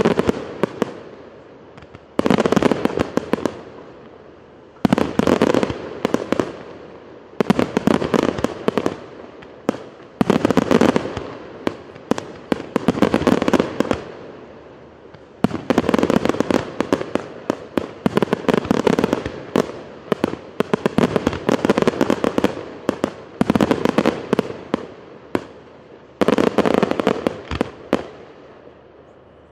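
Aerial firework shells bursting, each burst a dense spray of crackling pops lasting one to three seconds, repeating every two to three seconds, with a longer unbroken run of crackling about halfway through.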